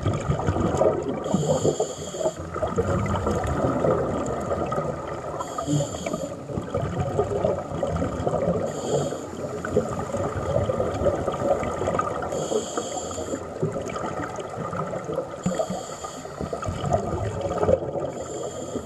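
Underwater breathing through a snuba diver's regulator: a hissing breath about every three to four seconds, with bubbling and a steady underwater rumble between breaths.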